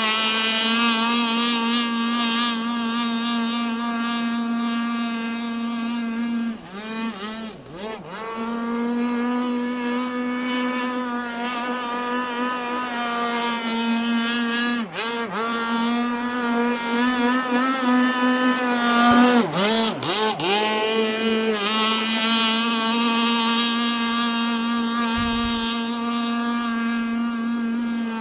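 Radio-controlled F1 racing catamaran model running flat out on the water, its motor giving a steady high-pitched whine. The pitch wavers and briefly dips several times, around 7, 15 and 20 seconds in, as the boat swings past.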